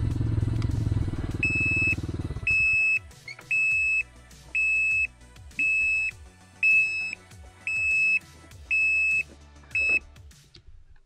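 Can-Am Ryker three-wheeler's engine idling, then cutting off about two seconds in. A high electronic beeper follows, sounding nine times, about once a second, each beep about half a second long.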